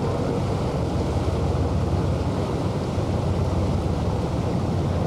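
A boat's engine running steadily under way, a constant low drone, with wind rushing over the microphone and water along the hull.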